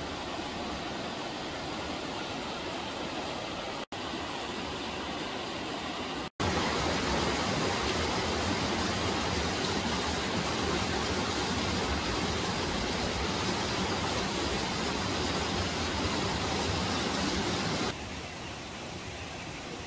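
Steady rushing of a mountain river's rapids over rocks. It cuts out briefly twice, comes back clearly louder about six seconds in, then drops to a softer, steady rush of a waterfall near the end.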